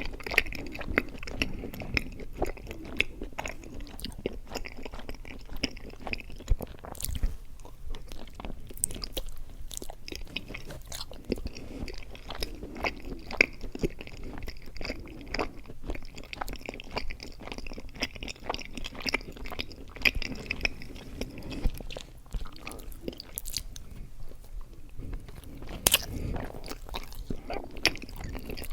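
Close-miked chewing of mochi ice cream: sticky, wet mouth sounds with many irregular smacks and clicks as the soft rice-dough shell and ice cream are worked in the mouth.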